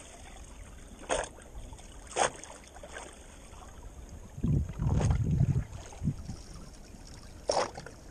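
Small waves slapping against the hull of a drifting fishing boat on calm water: three short sharp slaps over a low steady wash, with a low buffeting rumble for about a second halfway through.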